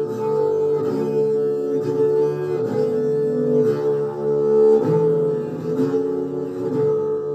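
Live acoustic music: a large upright bowed string instrument plays slow, shifting low notes over a steady held drone tone, with occasional plucked string notes.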